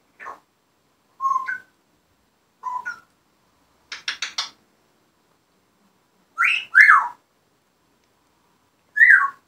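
African grey parrot whistling and calling in short separate bursts, with a quick run of four clicks about four seconds in; the loudest calls, with gliding pitch, come a little past halfway and near the end.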